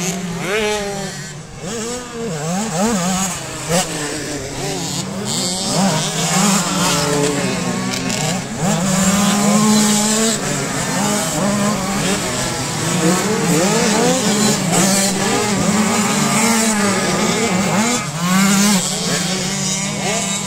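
Several motocross bikes racing, their engines revving hard and changing gear, with the pitch rising and falling throughout as the bikes overlap and pass.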